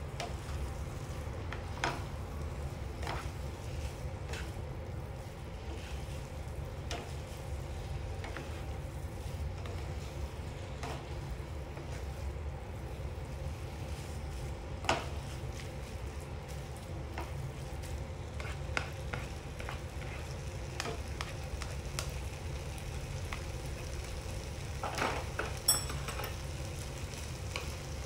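Sliced pork belly and kimchi frying in a nonstick pan while a spatula stirs and scrapes the food, with a steady low rumble underneath. Occasional sharp knocks of the utensil against the pan stand out, loudest about halfway through and again near the end.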